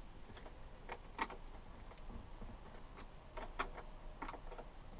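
Screws being hand-tightened with a screwdriver into a refrigerator door hinge piece: faint, irregular clicks and taps, about half a dozen.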